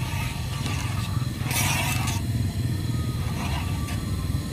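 A plastic spoon stirring thick starch batter in a small camping pan over a portable gas stove, with one brief scrape about one and a half seconds in, over a steady low rumble.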